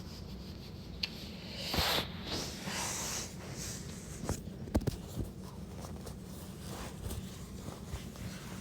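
Scattered sharp clicks, a few seconds apart, with a brief rustle about two seconds in, over a low steady hum.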